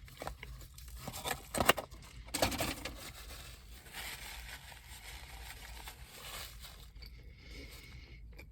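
Handling noises: rustling and scraping, with a few sharp clicks in the first two seconds and a louder rustle soon after, then a softer rustle, over a low steady hum.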